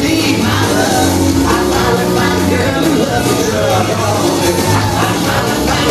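Country line-dance music with a singer, playing loud and steady.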